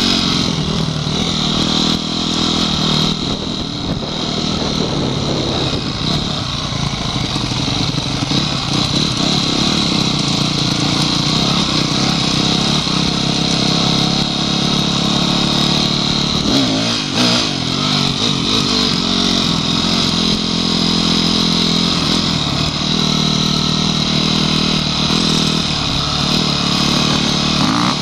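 Onboard sound of a Honda CRF250X enduro motorcycle's single-cylinder four-stroke engine running on a grass trail, its revs rising and falling with the throttle and dipping briefly about two-thirds through, under a steady rushing hiss.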